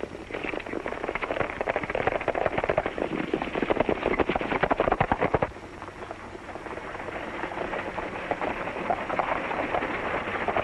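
Hoofbeats of galloping horses, a dense clatter of rapid strikes. It drops off suddenly about halfway through, then builds up again.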